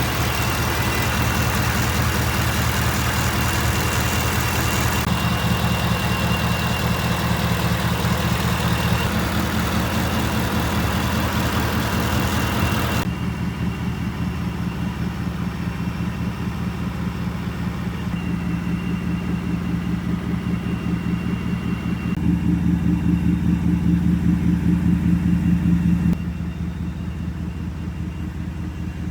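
Stock 5.0-litre Coyote V8 of a Ford F-150, fitted with only an air filter and an oil catch can, idling steadily. Its level and tone change abruptly a few times.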